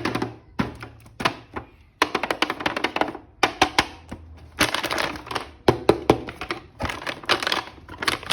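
Action-figure toy packaging being handled and opened: a dense run of crackles, clicks and taps in clusters.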